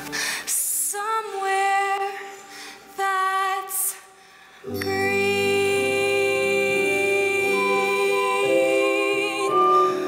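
A woman singing a slow phrase with vibrato over live stage-musical accompaniment. About halfway through, a sustained chord with a low bass note comes in and holds.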